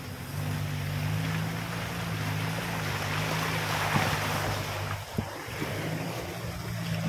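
Off-road jeep's engine running at a steady low drone while the vehicle pushes through tall grass, with a rushing swish of grass brushing along the body that swells in the middle. Two sharp knocks about a second apart near the middle.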